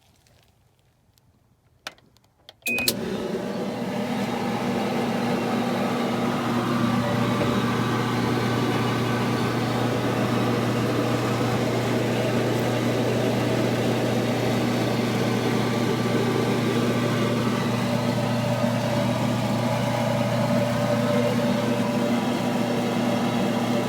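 Whirlpool clothes dryer started at the push of its start button: a couple of faint clicks, then about three seconds in the drive motor and blower start up and run steadily, with a constant low hum under rushing air. This is its test run after a relay on the control board was replaced.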